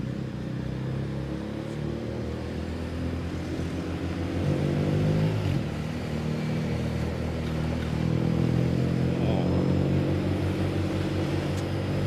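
Small motorcycle engine running under way, heard from the rider's seat: its pitch rises about four seconds in, drops briefly, then climbs steadily again.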